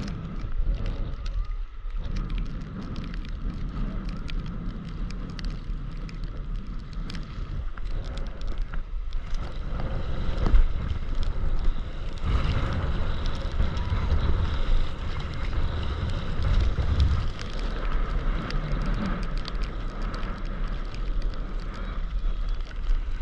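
Wind buffeting the microphone of a camera on a stand-up paddleboard, over water sloshing and splashing as the board is paddled through choppy sea, with many small ticks from drops hitting the camera.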